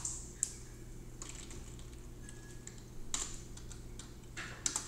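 Sparse keystrokes on a computer keyboard: a single click about half a second in, then small clusters of clicks around three seconds in and near the end, over a low steady hum.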